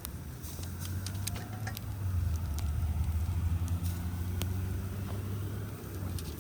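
A car passing by, its low rumble swelling to a peak midway and fading near the end, over the sharp crackle and pops of a wood campfire.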